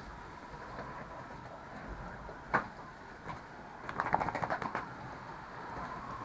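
Water spray hissing steadily over fattening pigs and the pen's metal wall, with a sharp knock about two and a half seconds in and a quick rattle of about ten clicks about four seconds in.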